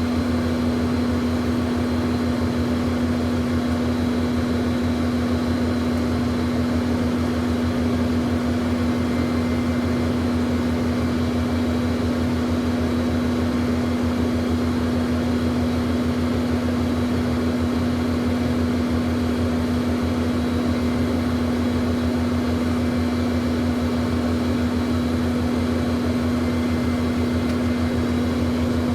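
Jet airplane engine noise: a steady, unchanging drone with a constant low hum running under it.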